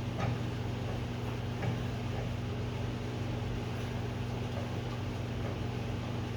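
Steady low machine hum, with a few faint metallic clicks, the first near the start and two more about two seconds in, as a wrench is worked on the nut and threaded rod of a coil spring compressor.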